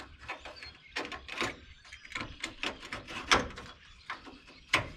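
Irregular clicks, taps and clunks of parts being handled in the engine bay of a 1979 Dodge D50, with the loudest knocks about three seconds in and near the end.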